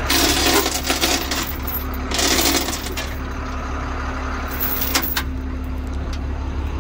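Wrecker tow truck's engine idling steadily. Over it, metal rattling and clanking comes in two bursts in the first two and a half seconds as the towing safety chains are handled, and there is a sharp click about five seconds in.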